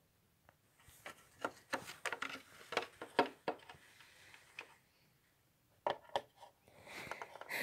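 Small plastic toy dolls and a plastic toy bus being handled and moved about: a run of light clicks and taps for a few seconds, then a few more clicks and a soft rustle near the end.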